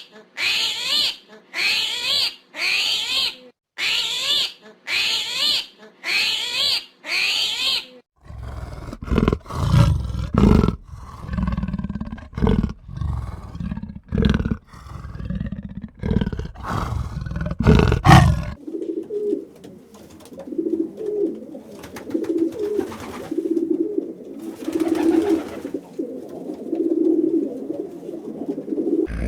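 A run of animal calls. First comes about nine short, high-pitched calls in quick succession. Then deep, rumbling roar-like calls follow for about ten seconds, and from about eighteen seconds in a low call repeats roughly once a second.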